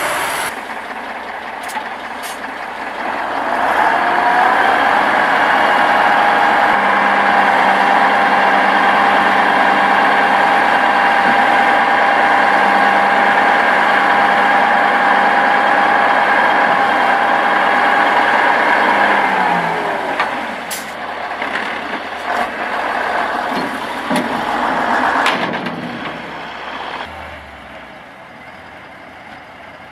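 Dump truck engine held at raised revs with a steady whine for about fifteen seconds while the tipper body is raised and the load dumped, gliding up at the start and falling away at the end. After that come a few knocks and hisses as the truck quietens.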